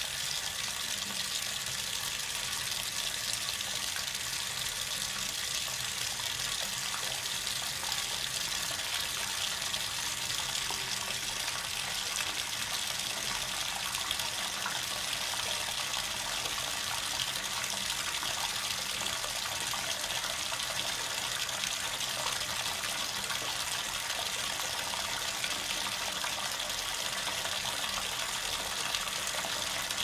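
Bathtub faucet running, a steady, unbroken stream of water pouring out.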